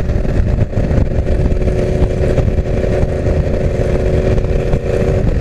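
Yamaha R1 inline-four engine running at a steady cruising pitch through a full straight exhaust with no catalytic converter, heard from the bike with wind noise underneath.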